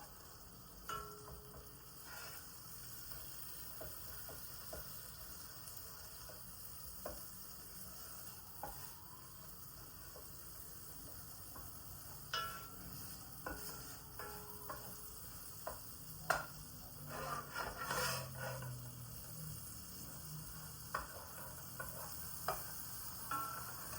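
Kitchen cooking sounds: scattered clinks and knocks of utensils against pots and dishes, some ringing briefly, over a faint steady sizzle of frying. The clatter gets busier about two-thirds of the way through.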